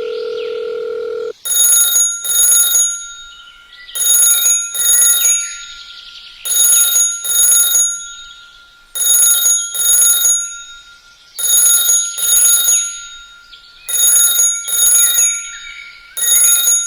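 A bell ringing in pairs of short rings, about one pair every two and a half seconds, over a steady high tone. Before the first ring there is a steady low buzz for about a second.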